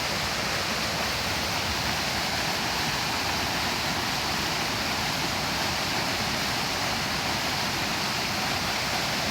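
Steady, unbroken rush of water, an even hiss without separate splashes or drops.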